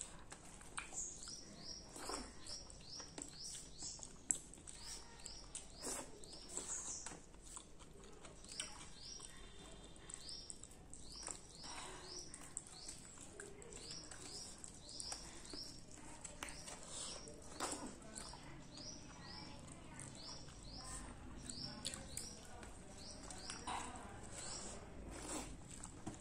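Fingers squelching and mixing rice with curry on a steel plate, in soft wet clicks. Over it a small bird chirps again and again in quick runs of short falling chirps.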